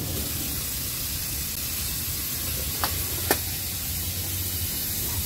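Electric heat gun blowing hot air: a steady hiss over a low hum, with two light clicks about three seconds in.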